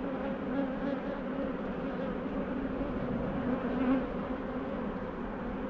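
Honeybees buzzing around an open hive as its frames are inspected: a steady, dense hum of many wingbeats, swelling briefly near the end.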